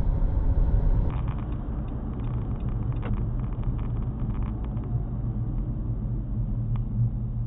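Steady low rumble of a car driving, heard from inside the cabin: engine and road noise. About a second in, the sound turns duller.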